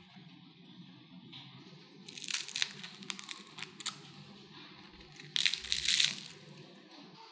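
Crispy deep-fried potato and cornstarch spirals crackling as fingers lift one and break it apart, in two spells of sharp crunching: one about two seconds in and a shorter, louder one a little past the middle.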